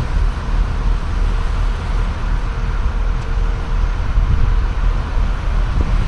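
Steady, gusting low rumble of wind buffeting the microphone outdoors.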